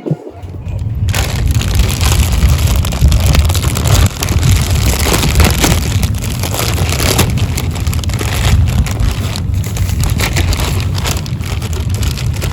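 Hand pump inflating an inflatable boat: a loud, continuous rushing of air with irregular pulses, starting about a second in.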